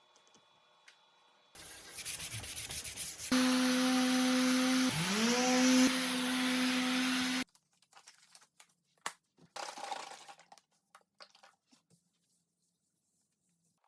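Power sanding on a wooden cutting board: a rough rubbing, then a louder stretch with a motor humming steadily while another motor spins up, cutting off suddenly. Scattered knocks and short rubs of wood handling follow.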